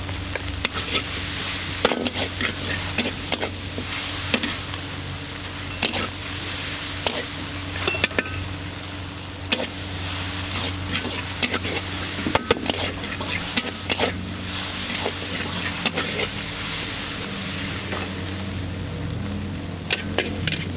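Flat rice noodles (char kway teow) sizzling in a hot wok, with frequent sharp clanks and scrapes of a metal spatula against the wok as they are stir-fried. A steady low hum runs underneath.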